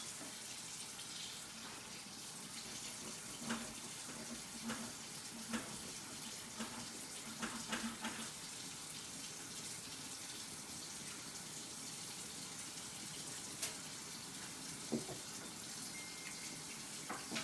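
Kitchen faucet running steadily into the sink while raw chicken wings are rinsed under it, with a few brief knocks and clinks.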